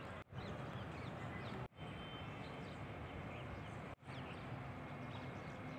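Quiet steady background noise with a few faint high chirps, cut by three brief dropouts.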